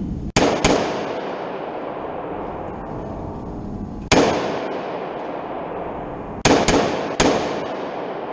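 Six gunshots, each ringing on with a long echo: two in quick succession, a single shot about four seconds in, then three more in a quick string near the end.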